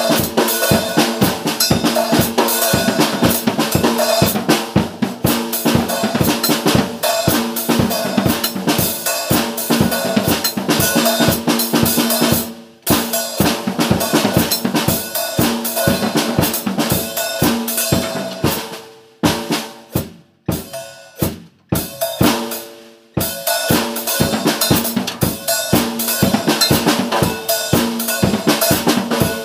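Music driven by a drum kit playing a steady, fast beat over sustained pitched notes. It drops out briefly about 13 s in and thins to a few scattered hits between about 19 and 23 s before the full beat returns.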